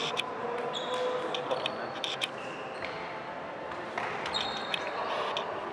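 Indoor ball game in a sports hall: short high squeaks of shoes on the floor and sharp knocks of the ball over a murmur of voices.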